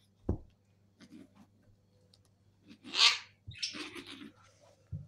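Kittens play-fighting on a sofa: a soft thump a fraction of a second in, then rough bursts of scuffling and rustling, the loudest about three seconds in and another just after.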